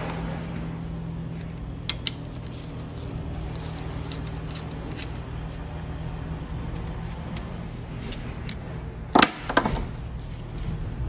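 Small metal clicks and taps of a U-joint bearing cap and its bolts being handled and seated in a driveshaft yoke, with a couple of sharper metal knocks near the end, over a steady low hum.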